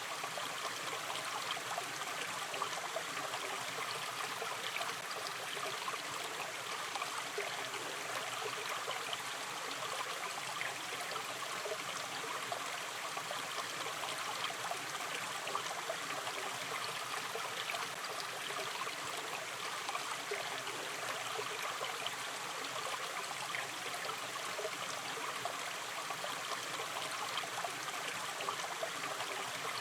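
A gentle river stream flowing and trickling steadily, with fine babbling and splashing.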